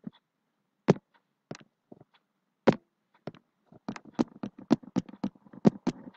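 Stylus tapping and clicking against a tablet surface during handwriting: a few separate sharp taps, then from about four seconds in a fast, irregular run of clicks as the strokes are written.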